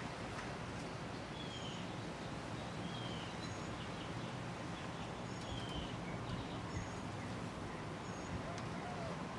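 Early-mid-1980s TAT Deluxe ceiling fan running steadily with a low hum. Short bird chirps are heard faintly every second or two.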